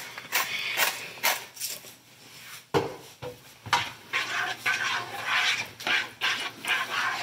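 A hand pepper grinder being twisted over the pot, a run of short crunching strokes about three a second. About two and a half seconds in comes a sharp knock, and then a spoon stirs and scrapes through thick tomato sauce in the pot.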